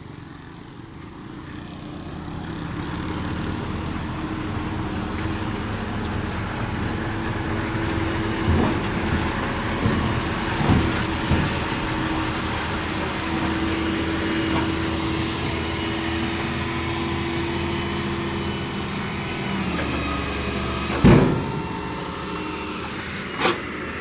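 A motor vehicle's engine running steadily, with a few short knocks. A loud thump comes about 21 seconds in, and a smaller one near the end.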